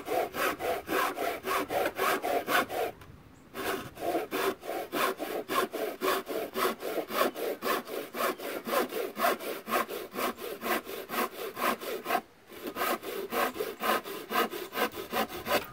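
Handsaw cutting through a wooden board with quick, even strokes, about five a second, stopping briefly about three seconds in and again about twelve seconds in.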